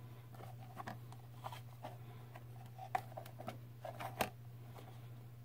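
Light clicks, taps and rubbing of a hard plastic dryer heat-reclaimer housing being handled and turned over, with a few sharper clicks about three and four seconds in, over a steady low hum.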